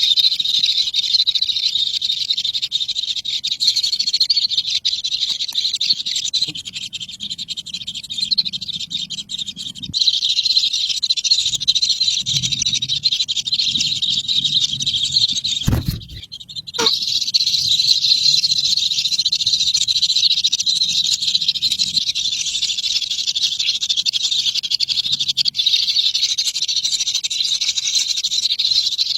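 A dense, steady, high-pitched animal chorus, broken once by a brief cut about sixteen seconds in.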